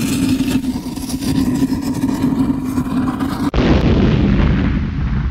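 Cinematic countdown intro sound effect: a loud rumbling drone with a steady low hum, then a sudden boom about three and a half seconds in that rumbles on and cuts off near the end.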